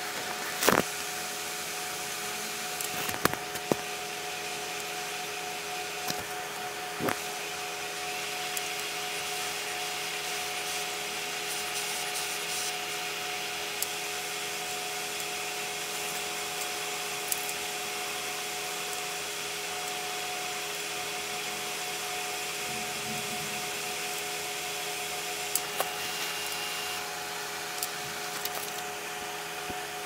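A steady machine-like hum made of several steady tones. Over it, a few sharp clicks sound as small metal connector pins and wires are handled on a stone worktop.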